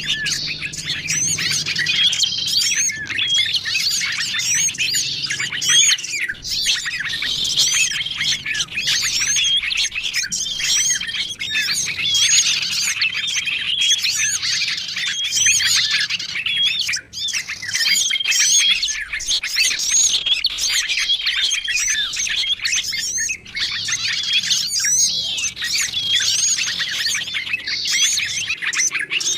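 Bird-lure recording of many small songbirds calling at once: a dense, unbroken layer of high chirps, twitters and trills, with a short level whistle recurring every two to three seconds. The mixed calls are meant to draw small wild birds in.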